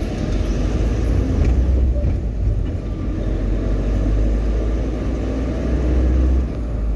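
Steady low engine and road rumble of a moving vehicle, heard from inside its cab.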